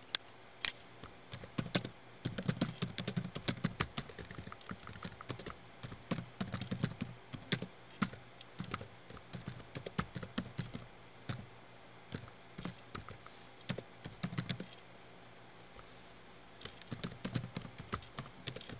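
Computer keyboard typing in quick runs of keystrokes, pausing for about two seconds near the end before the typing resumes.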